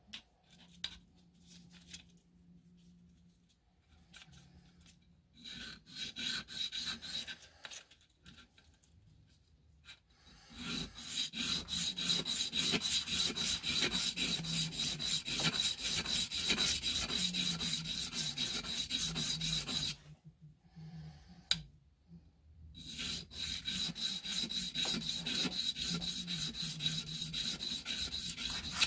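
A small brass part rubbed by hand on red abrasive paper in rapid back-and-forth scraping strokes, easing and deburring its edges. The rubbing goes in two long runs with a short pause between them, after some fainter, brief strokes early on.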